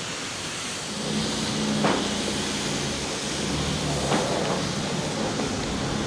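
Mercedes-AMG C63 S Estate's 4.0-litre twin-turbo V8 idling low and steady under a constant hiss, with a couple of sharp clicks.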